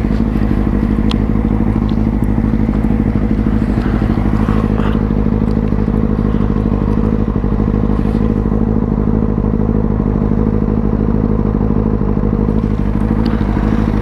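Motorcycle engine idling steadily at the roadside, its note holding at one even pitch without revving.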